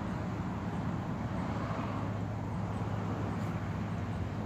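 Steady background noise: a constant low hum under an even hiss, with no distinct sounds standing out.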